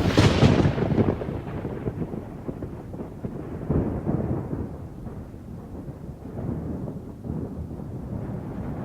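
A sudden crack of thunder right at the start, fading into low rolling thunder that rumbles on with swells about 4 and 6 seconds in.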